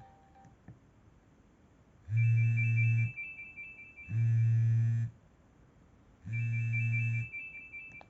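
Nokia E65 mobile phone alert sounding in three pulses about a second long and a second apart, each a low buzz, with a high steady beep on the first and third.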